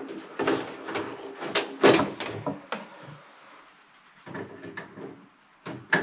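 Hands working at a combi boiler's plastic wiring compartment and pulling out old cable: a run of clicks, knocks and rustles, the loudest about two seconds in, with a quieter spell after three seconds.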